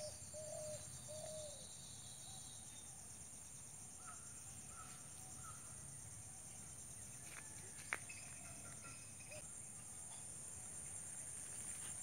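Steady high-pitched insect chorus of crickets or cicadas, with a few short repeated bird calls in the first second and a half and faint chirps a few seconds later. A single sharp click sounds about eight seconds in.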